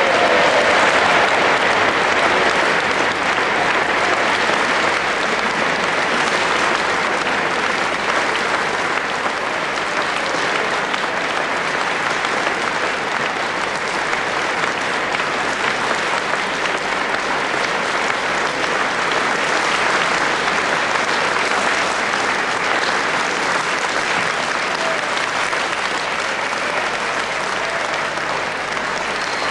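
A large seated audience applauding, starting suddenly and going on without a break, easing slightly toward the end.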